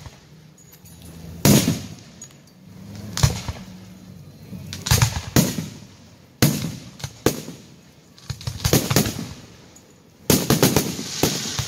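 Aerial firework shells bursting overhead: a string of sharp bangs about one a second, each trailing off. Near the end comes a quick volley of bangs with crackling.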